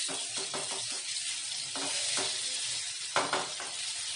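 Ginger-garlic paste sizzling in hot oil in a metal wok, stirred with a metal spoon that scrapes and knocks against the pan; one louder knock comes about three seconds in.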